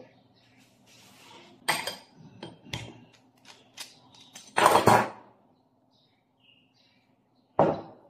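Metal parts of a stainless-steel espresso brewer clinking and knocking as it is taken apart by hand: the clamp, brew chamber, filter basket and shower screen. There is a string of light clicks, a louder metallic clatter about halfway through, and one sharp knock near the end.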